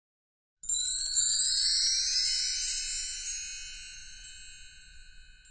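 A bright shimmer of chimes: a quick run of high metallic tones sweeping upward, starting about half a second in, then ringing and fading away over the last couple of seconds.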